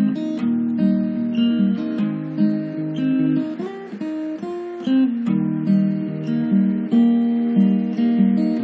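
Background music: an acoustic guitar playing a plucked melody.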